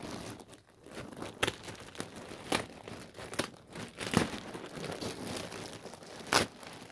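Packaging crinkling and rustling as an item is unwrapped by hand, with irregular sharp crackles, the loudest near the end.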